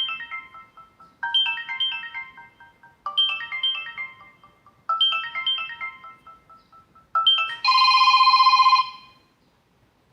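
Samsung Galaxy S2 ringtones playing. A short descending chime phrase repeats about every two seconds. Near the end a different tone sounds for about a second: a rapidly pulsing electronic ring.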